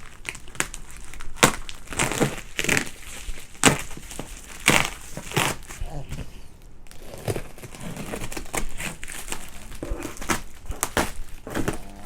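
A cardboard shipping box being cut and torn open: irregular tearing, crinkling and crackling of cardboard and packing tape, with sharp rasps and snaps.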